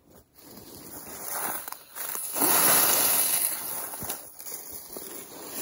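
Dry leaves and brush rustling in a hissing swell that builds to its loudest about three seconds in and then dies down, with a few faint ticks.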